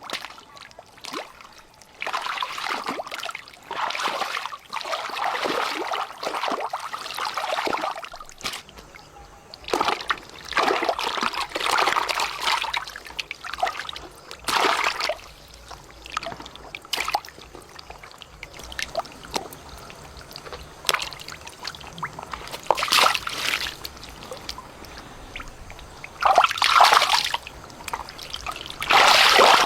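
Water splashing and trickling in irregular bouts, a few seconds of splashing at a time with quieter trickling between.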